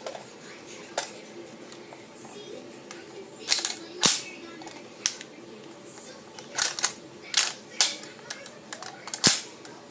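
Irregular sharp clicks and knocks from a toy gun being handled, with its clip being taken out.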